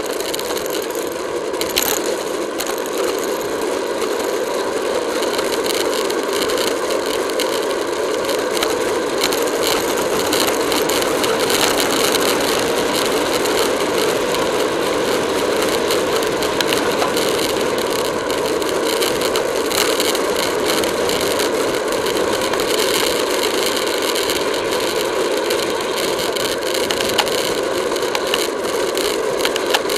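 Wind and road noise on a camera riding on a racing bicycle at speed in a pack, with a constant dense rattle of small clicks and knocks from the bike and its mount over the road surface.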